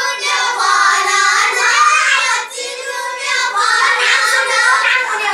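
A group of children singing a Nepali dohari folk song together, with a short break in the voices about halfway through.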